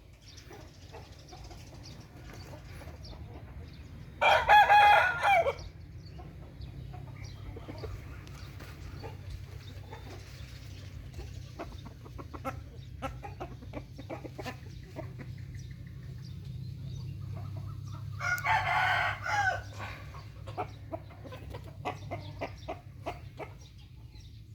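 Burmese gamecock crowing twice, each crow about a second and a half long, the first about four seconds in and the second about eighteen seconds in. Small clicks and a steady low hum in between.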